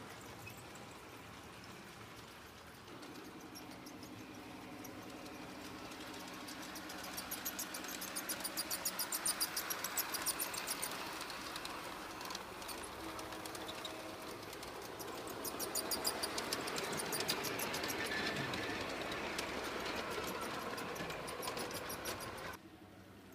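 Garden-scale model train running on the layout: a steady motor hum with rapid, rhythmic clicking of the wheels over the track, swelling louder twice as it goes by. The sound cuts off suddenly near the end.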